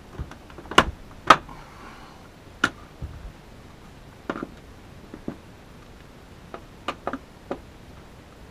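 Scattered sharp clicks and knocks of a cover plate being handled and fitted back over the wiring terminals of a mini-split's wall-mounted indoor unit, the two loudest about a second in.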